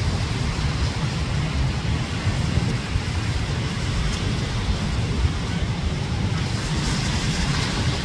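Wind buffeting the microphone as a steady low rumble, over the hiss of surf breaking and washing up the beach, the surf growing louder near the end.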